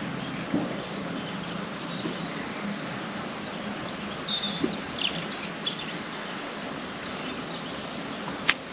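Steady outdoor background noise with a few short, high bird chirps about four to six seconds in, and a single sharp click near the end.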